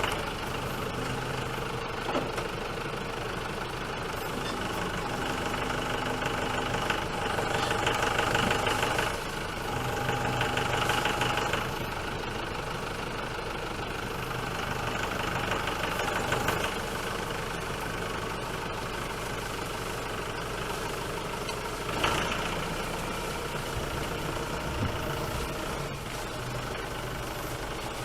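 Tractor engine running steadily, swelling louder a few times as it works.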